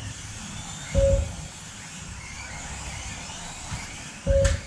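Small electric motors of Kyosho Mini-Z radio-control trucks whining as they race, rising and falling in pitch. Two short, loud bursts, each a deep thump with a steady mid-pitched tone, stand out about a second in and near the end.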